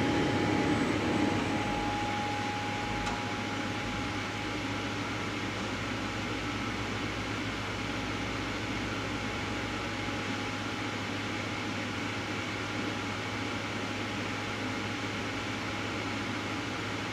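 Steady hum of automated pallet-handling machinery on a factory line. A louder mechanical run eases off over the first couple of seconds, leaving a level low hum, with a faint high whine that fades about three seconds in.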